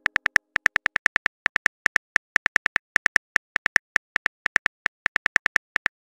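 Rapid phone-keyboard typing clicks from a texting app's sound effect, one short tick per character as a message is typed out. The ticks come about seven a second in uneven runs with short pauses between them.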